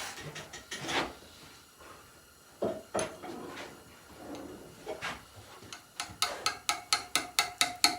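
A steel chisel struck by hand with a hammer, cutting stone: a few scattered knocks, then from about six seconds in a steady run of ringing strikes, about four a second.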